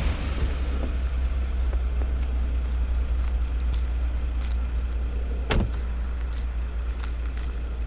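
A car door of a 1980s Mercedes-Benz S-Class saloon shuts once with a sharp knock about five and a half seconds in, over a steady low hum.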